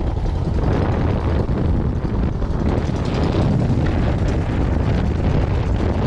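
A small fishing boat's engine running steadily at speed, with heavy wind buffeting the microphone.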